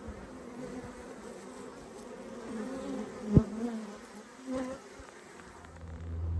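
Honeybees buzzing around an open hive, with single bees passing close by so the pitch wavers up and down. A single sharp knock about three and a half seconds in.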